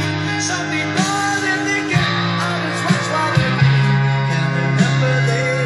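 Music with guitar and singing playing from a vinyl record through the speakers of an AIWA CX-ZL31 mini stereo system.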